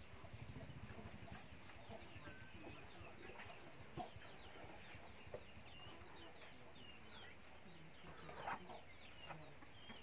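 Chickens clucking faintly in short, scattered calls.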